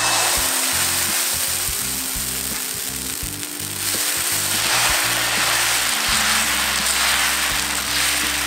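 Green herbal dosa batter sizzling on a hot griddle (tawa) as it is poured and spread in circles with a ladle, louder from about halfway through. Background music with steady low notes plays underneath.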